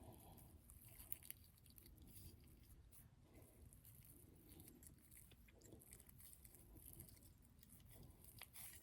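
Near silence: faint handling of craft materials, with a few small clicks.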